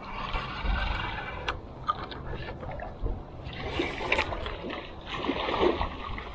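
Water sloshing and splashing against the hull of a small skiff, coming in rough spells near the start, around four seconds in and again before the end, with a few light knocks.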